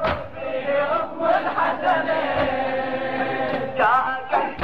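Congregation of male mourners chanting a lamentation refrain together, a blurred mass of voices, with a sharp chest-beating (latm) strike at the start and again at the end.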